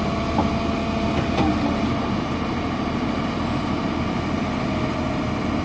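Heavy diesel engine idling steadily, a continuous low rumble.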